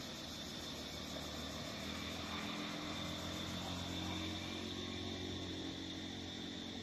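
An engine running with a low, steady hum that swells from about a second in and eases off near the end, over a steady high buzz.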